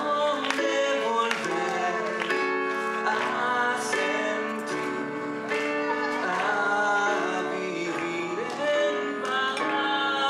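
A man singing a song into a microphone while accompanying himself on a Casio electronic keyboard.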